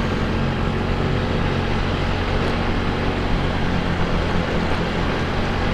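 Yamaha Mio GT scooter's single-cylinder engine running steadily while riding, with a steady rush of wind and road noise.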